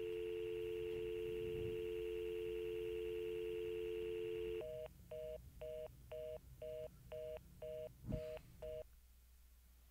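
Telephone line tones after the caller hangs up. A steady dial tone sounds first, then about four and a half seconds in it switches to a fast busy signal, short beeps about twice a second, that stop near the end.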